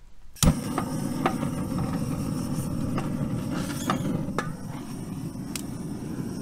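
Handheld gas torch blasting its flame into a bed of lump charcoal to light it. It makes a steady roaring rush that starts suddenly with a sharp crack about half a second in, and sharp cracks and pops from the catching coals come through it every so often.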